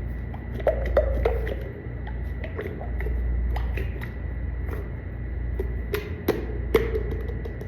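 Packaging being handled during an unboxing: scattered light clicks and taps, with a cluster about a second in and another near the end. Under them run a steady low rumble and a faint steady high whine.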